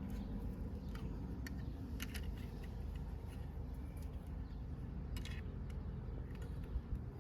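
Scattered light clicks and small rattles of wiring and trim parts being handled during a car's reverse-camera wiring job, over a steady low hum.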